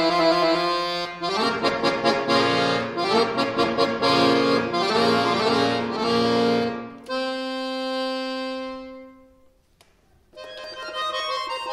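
Chromatic button accordion playing a quick, busy passage of notes and chords, then holding one long chord that fades away about nine and a half seconds in; after a brief silence, softer playing begins again.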